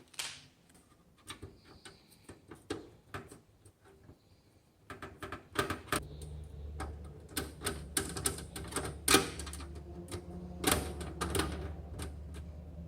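Small clicks and metallic taps of screws and a screwdriver fastening an SSD into the metal drive bracket of a Dell Vostro 200 PC case. The taps are sparse and light at first and come thicker and louder about five seconds in, when a low steady hum also starts.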